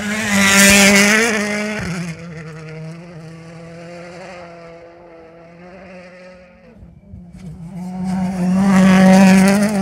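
Two World Rally Cars' turbocharged four-cylinder engines at high revs, each passing close by. The first is loudest in the opening two seconds and fades away; the second builds up from about seven seconds in and is loudest near the end.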